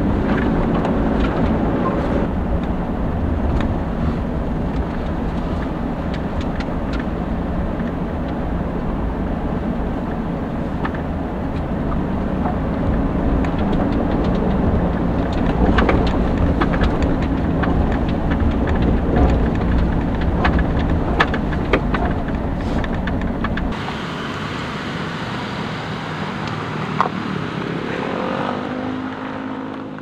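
Car driving slowly over a rough dirt track, heard from inside the cabin: a steady low engine and road rumble with scattered knocks and rattles. About six seconds before the end the low rumble drops away and a thinner, higher sound takes over.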